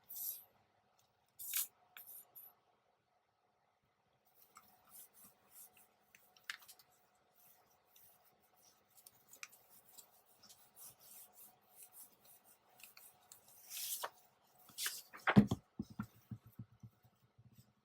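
Paper being handled and cut with scissors: scattered soft snips and rustles, then a cluster of louder handling noises with a thump about fifteen seconds in.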